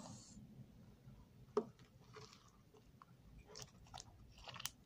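Slime being squeezed and worked by hand, with faint wet squishes and scattered small pops and crackles as air bubbles in it burst; the sharpest pop comes about a second and a half in, and a cluster of pops follows near the end.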